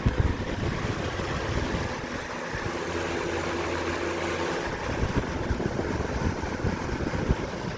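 Lasko box fan running on its high setting: a steady rush of air from the blades, with a low hum from the motor.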